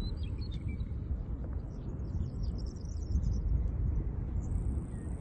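Steady low rumble of wind outdoors, with faint bird chirps a few times over it.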